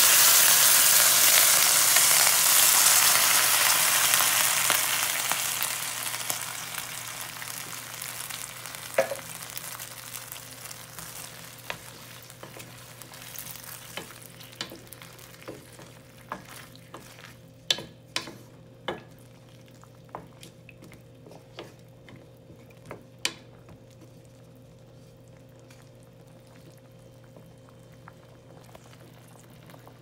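Sizzling from coconut milk just poured into a hot stainless steel pot of aromatics, dying away over the first several seconds as the milk cools the pan. Then a wooden spatula stirring, with scattered sharp knocks against the pot.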